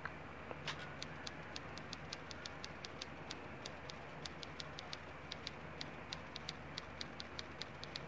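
Typewriter sound effect: quiet, rapid key clicks, several a second and slightly uneven, keeping pace with text being typed out on screen.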